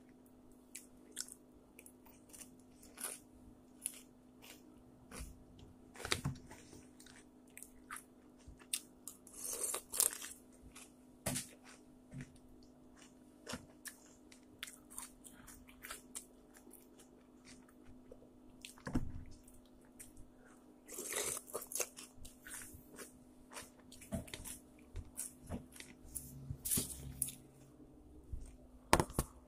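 Someone chewing and crunching food close to the microphone, in irregular crunches and clicks, some clustered more loudly than others, over a steady low hum.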